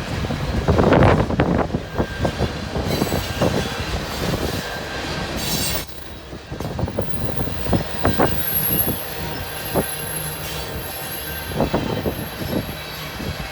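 The cars of a CN freight train rolling past: the wheels clatter and bang over the rail joints, loudest about a second in. From about eight seconds in a thin, high wheel squeal comes and goes.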